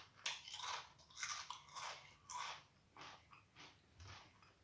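Walkers Sunbites multigrain crisps being chewed, crunching about twice a second, the crunches growing fainter in the second half.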